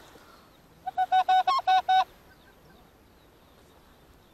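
A rapid run of about six loud, clipped goose honks in just over a second, stopping suddenly about two seconds in.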